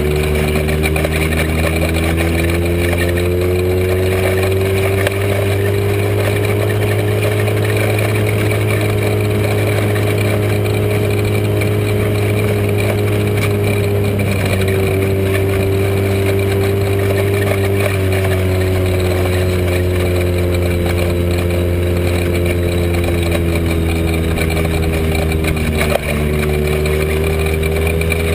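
Joyner dune buggy engine, breathing through a Weber 45 DCOE carburettor and a big-tube header, running under load while driving across sand. Its pitch rises and falls gently with the throttle, with a short dip near the end.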